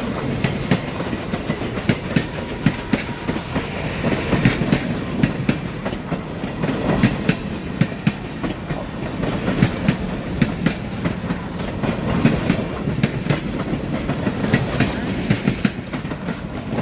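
Streamlined passenger cars rolling past close by. Their steel wheels clack over the rail joints again and again above a steady rumble.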